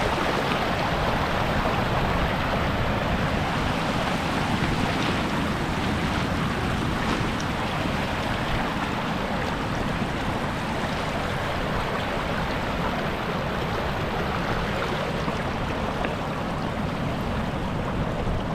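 Steady, unbroken rush of sea surf and waves.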